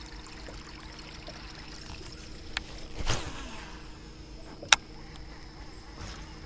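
A rod being cast: a sudden swish about three seconds in, then a single sharp click near five seconds as the baitcasting reel is engaged to start reeling, over a steady high insect drone.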